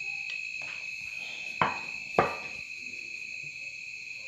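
Steady high trilling of crickets throughout, with two sharp clinks of tableware about half a second apart, a little past a third of the way in.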